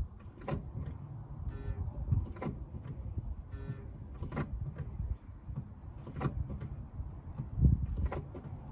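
Five sharp clicks, evenly spaced about two seconds apart. Short squeaks come between the first few, and a low rumble runs underneath.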